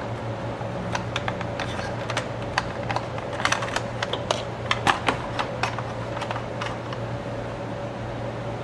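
Irregular light clicks and taps of hands and a tool working on the plastic and metal parts of a slide projector during disassembly, thickest in the middle of the stretch, over a steady low hum.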